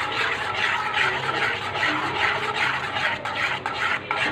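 Metal spoon stirring thick semolina halwa and scraping the inside of a steel kadhai in quick, repeated strokes.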